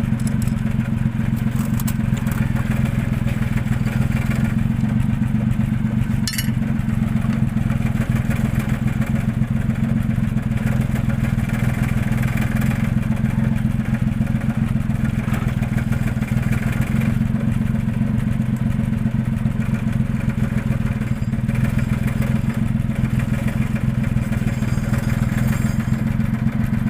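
Diesel injector test bench running steadily, a loud hum with dense fine rapid clicking, as a cleaned and calibrated injector from a Fuso 6M70 diesel engine is spray-tested.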